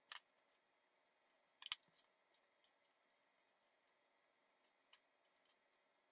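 Small electronic components (resistors, chips and connectors) being picked up and set down on a cutting mat while they are sorted. The result is scattered, irregular light clicks and ticks.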